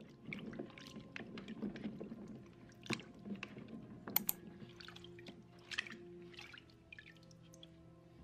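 Hands swishing and rubbing carrots in a bucket of water: soft irregular splashing and dripping, with a few sharp clicks.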